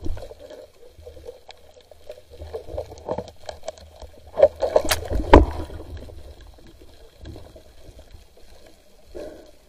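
Muffled water sloshing and gurgling under a steady low rumble, with scattered clicks and a sharp knock about five seconds in.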